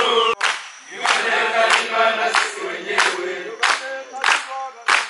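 A group of voices singing together over steady rhythmic hand clapping, about three claps every two seconds.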